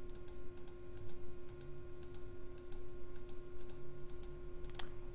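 Light, unevenly spaced computer mouse-button clicks, several a second, as a brush tool dabs paint, with one sharper click near the end; a steady electrical hum runs underneath.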